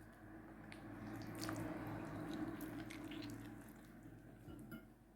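Faint wet squishing and handling of seasoned raw chicken and cut vegetables, swelling for a few seconds and then fading, with a few small clicks.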